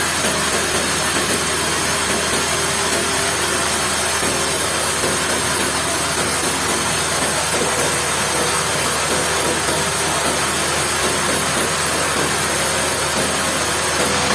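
Sawmill machinery running steadily: a constant loud hiss over a low engine hum, with no pauses or separate impacts.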